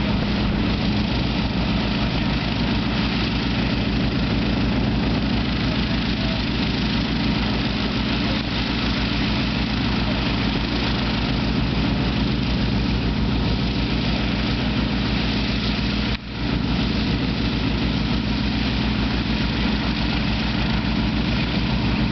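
Rolls-Royce Griffon V12 piston engines of an Avro Shackleton running steadily on the ground, with their contra-rotating propellers turning, giving a deep, even drone. The sound drops out briefly about three-quarters of the way through.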